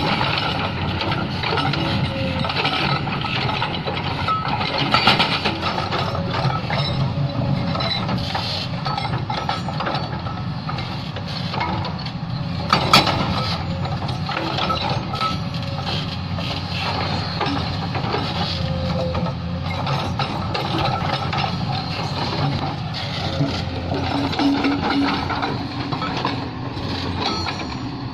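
Hyundai excavator's diesel engine running steadily, with scattered clanks and knocks of steel on rock, one sharper knock about 13 seconds in.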